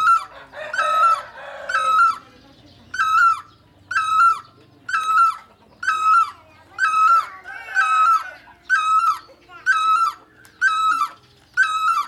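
Great barbet calling: a loud, short call repeated in a steady series, roughly one call every 0.8 seconds.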